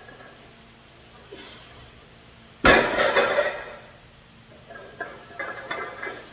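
Loaded 200 kg deadlift barbell coming down onto the gym floor: one heavy metal clank of the plates hitting the floor about two and a half seconds in, followed by a few quieter bumps.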